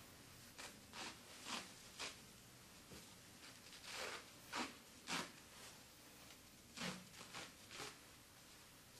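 Conforming bandage being drawn off its roll and wrapped around a padded limb: about ten faint, short rustles, each as a length of bandage is pulled off and laid on.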